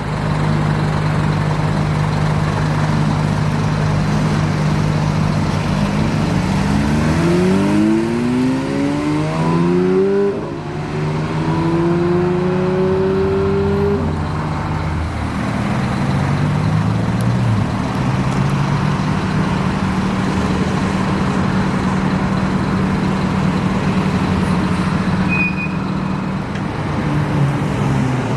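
Sports car engines idling, then revving up hard in several quick rising steps from about six seconds in, as a car accelerates away through the gears. After about fourteen seconds the revs drop back and steady engine running continues.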